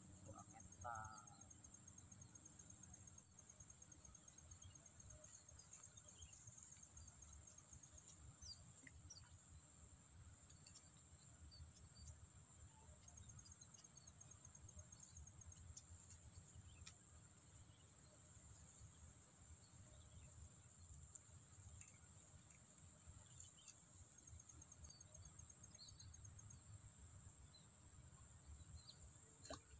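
Insects, crickets, keeping up a steady high-pitched drone. A faster pulsing trill joins for several seconds at the start and again about halfway through, over a low outdoor rumble.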